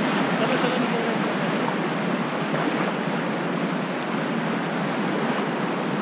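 Fast mountain-river rapids rushing steadily around an inflatable raft, splashing whitewater close to the microphone.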